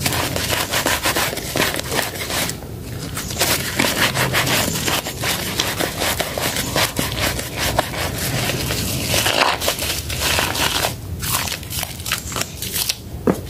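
Soaked soap and a lathered scrub sponge squeezed and kneaded by hand in a basin of thick foam: wet squishing with a dense run of small crackles, pausing briefly twice.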